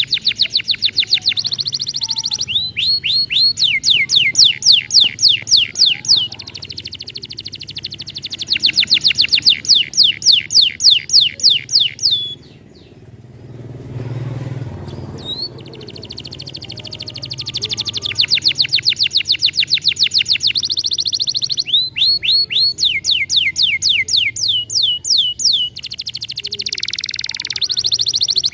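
Domestic canary singing: long trills of rapidly repeated high notes, each run built from a different repeated note, with a short pause about halfway through.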